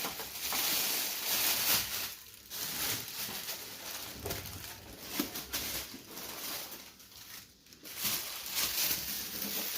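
Plastic wrapping and packaging rustling and crinkling as a printer is lifted out and unwrapped, with brief pauses in the handling.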